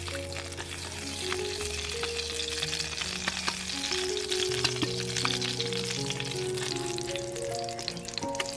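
Oil sizzling with many small crackles in a hot metal ball-cake pan as it is swabbed into the cups, under background music.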